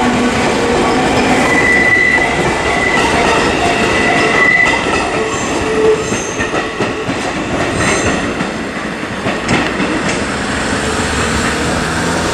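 Seibu 4000 series electric train running past at close range, wheels rumbling over the rails with a high wheel squeal for a few seconds early on, then several clacks over rail joints.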